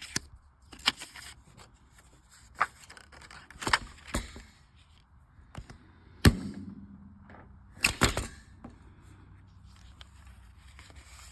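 A stapler being handled and pressed: a series of separate sharp clicks and knocks, the loudest about six seconds in.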